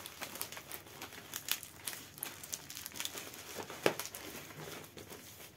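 Bubble-wrap plastic packaging crinkling and crackling as it is handled and opened, with scattered sharp clicks and one louder click about four seconds in.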